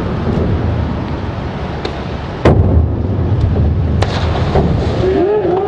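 A 1-metre diving springboard bangs as the diver takes off about two and a half seconds in, and the diver's entry into the water is heard a second and a half later, over the steady low rumble of an indoor pool hall. A voice calls out near the end.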